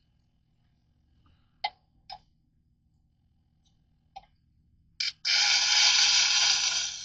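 A few light clicks and taps of the knife being handled, then, about five seconds in, the blade starts grinding against the wet sharpening stone: a loud, steady scraping hiss.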